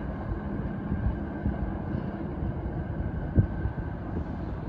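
Commuter train pulling away, a steady low rumble, with wind buffeting the microphone and one sharp thump about three and a half seconds in.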